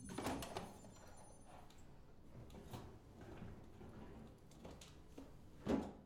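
Front-loading washing machine door pulled open with a sudden clack just after the start, then faint rustling and handling of laundry, with a louder short rustle or thump near the end.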